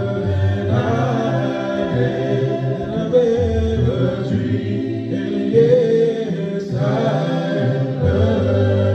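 Male a cappella vocal group of six voices singing a gospel song in close harmony, without instruments: long held chords over a deep bass part.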